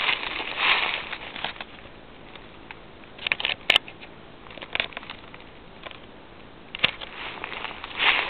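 Footsteps crunching through dry fallen leaves for about the first second, then a pause broken by a few small crackles and clicks, and the crunching steps starting again near the end.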